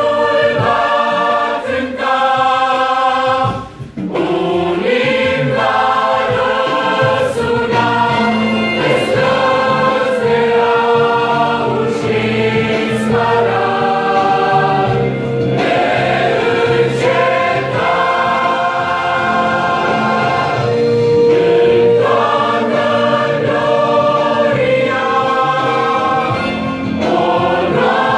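Mixed choir of women's and men's voices singing a Pentecostal hymn, phrase after phrase, with a brief pause about four seconds in.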